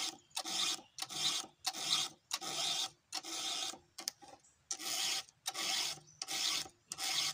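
Round file rasping across the cutter teeth of a chainsaw chain, sharpening it by hand: a steady run of scraping strokes, about one and a half a second, with a short break about four seconds in.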